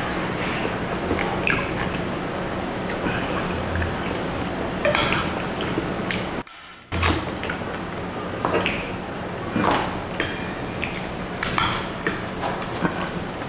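Spoon and fork clinking and scraping against a glass dish while lifting and stirring thick lomi noodles in broth, with wet noodle, broth and eating sounds. The sound cuts out for about half a second just past the middle.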